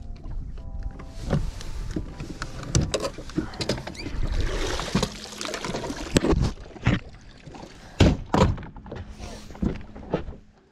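Irregular knocks and thumps on a fishing boat, with a few sharp, strong ones about eight seconds in and a short rush of hiss about four seconds in.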